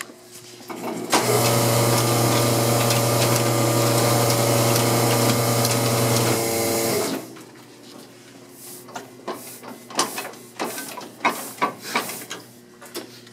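Multi 1450 offset press running for about six seconds, a steady hum with clatter, as it pulls a new sheet of paper through, then stopping abruptly. After it, scattered light clicks and knocks from the press's parts.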